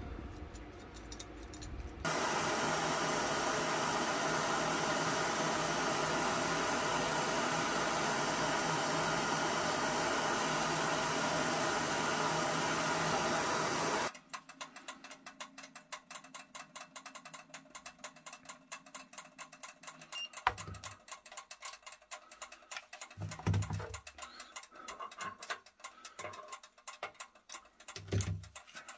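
Gas blowtorch flame running steadily for about twelve seconds, heating a small steel pistol trigger spring to harden it, then cut off abruptly. After it, faint rapid crackling clicks and a few dull thumps.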